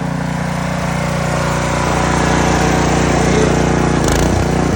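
Gas pressure washer's small engine running steadily under load, with a hiss of spray, getting a little louder over the first few seconds while the pressure is being turned up. A brief sharp noise breaks in about four seconds in.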